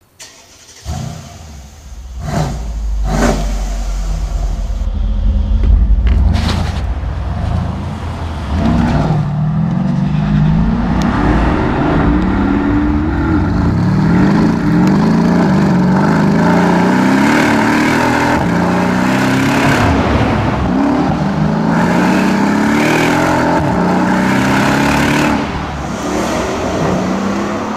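Mercedes-Benz SL63 AMG's V8 engine accelerating through the gears: a series of rising engine notes, each dropping back at an upshift. In the first seconds there is a low rumble with a few sharp cracks.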